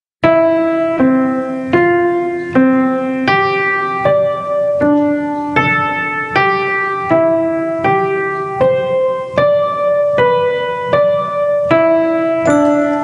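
Piano playing the digits of pi as a melody with chords, each digit a degree of the major scale. A new note and chord are struck about every three-quarters of a second at an even tempo, each fading until the next.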